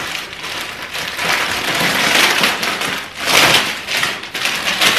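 Plastic packaging crinkling and rustling as a wrapped pair of cushion covers is handled and opened by hand, growing louder twice.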